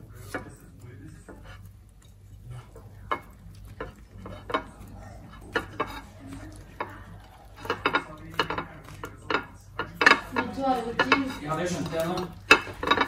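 A flour tortilla wrap being rolled by hand on a ceramic plate: soft rustling of the tortilla, with scattered sharp clicks and taps of the plate. The clicks get busier and louder in the second half.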